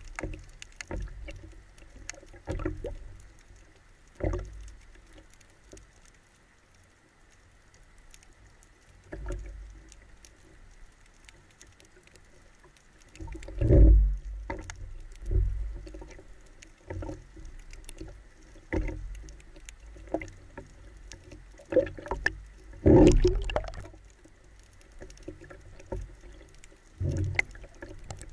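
Water heard through an underwater camera housing on a speargun moving just below the surface: irregular muffled thumps and water sloshing, with louder knocks about halfway through and again about three quarters of the way in.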